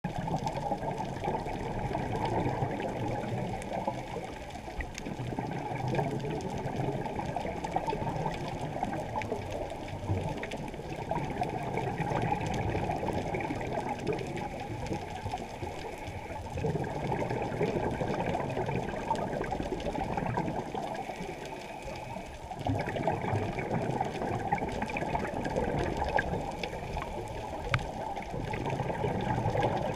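Scuba regulator exhaust bubbles gurgling underwater, heard through a camera's waterproof housing, which leaves the sound dull and muffled. The bubbling dips briefly about two-thirds of the way through, then comes back.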